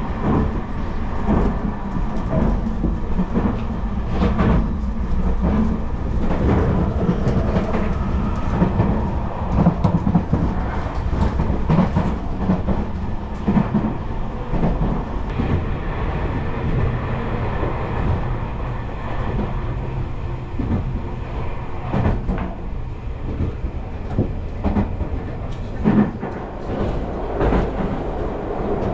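Tobu Spacia X limited express train running, heard from inside the passenger car: a steady low rumble of wheels on rails with scattered clicks and knocks.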